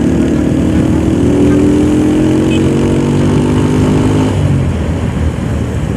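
Motorcycle engine running under way, its note rising slowly as it accelerates, then falling away a little over four seconds in, over steady wind and road noise.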